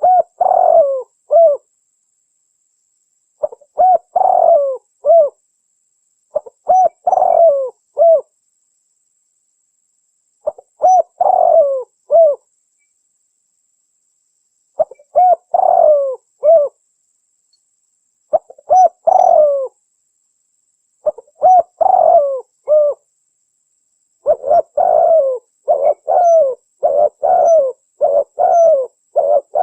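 Spotted dove (terkukur) cooing in short phrases of three to five coos, one phrase every three to four seconds, then a quicker unbroken run of coos over the last five seconds. It is the territorial call used as a lure to draw rival doves.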